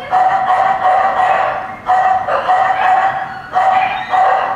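Small dog barking over and over while running, a string of drawn-out barks at roughly one or two a second.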